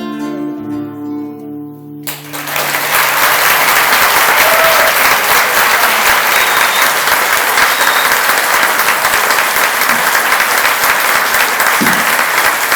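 Guitars ring out on the song's closing chord, then about two seconds in an audience starts applauding loudly and keeps it up steadily.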